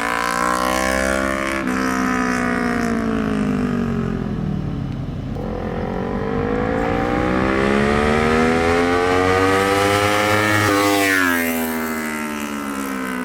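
Kawasaki Ninja 400's parallel-twin engine through an aftermarket exhaust, its revs falling away for several seconds, then climbing steadily, then dropping sharply near the end.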